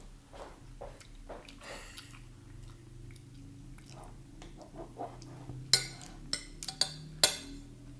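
Chewing and other soft eating noises at a meal, then, in the last few seconds, a handful of sharp clinks of a spoon or other cutlery against a plate or bowl.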